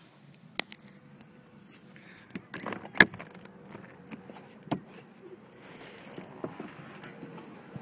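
Clicks, knocks and rustling of someone handling a phone and moving about inside a car while getting out of it. Two sharp clicks come near the start, and the loudest knock comes about three seconds in.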